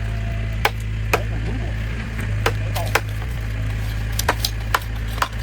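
Irregular sharp wooden knocks and cracks, about eight in all, typical of bamboo or timber being struck or split by hand. A steady low hum runs beneath them.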